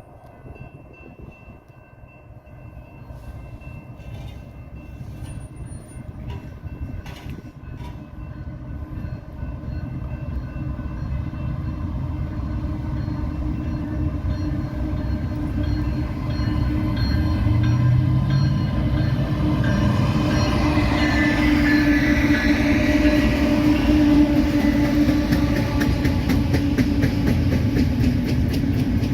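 BNSF freight train with diesel locomotives in the lead approaching, the engines' running sound growing steadily louder as they near and pass. Near the end the rail cars follow with a steady run of wheel clicks.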